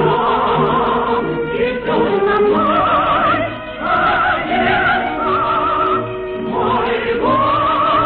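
Operetta music: a soprano voice singing long notes with wide vibrato over an orchestra.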